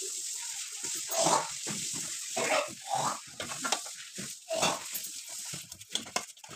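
Hand mixing a wet gram-flour (besan) batter in a steel bowl: irregular wet squelching and slapping strokes as the fingers work the batter and water is added.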